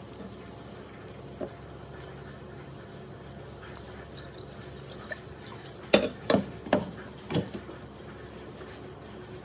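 Close-up eating sounds of a person chewing fried chicken and rice. About six seconds in, a quick run of four or five loud, sharp wet clicks and smacks.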